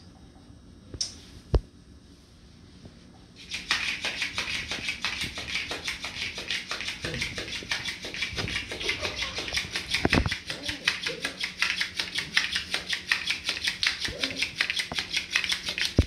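Electric flopping-fish cat toy wriggling on a tile floor: a fast, steady tapping rattle of many clicks a second that starts a few seconds in. Before it there is one sharp knock.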